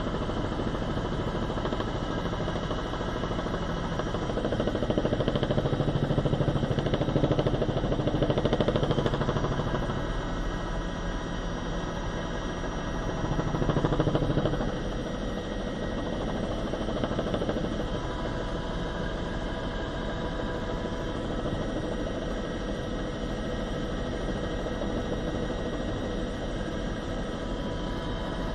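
Helicopter engine and rotor noise heard inside the cabin through the crew's open microphone: a steady drone with several steady tones, swelling louder for a few seconds about five seconds in and again briefly around fourteen seconds in.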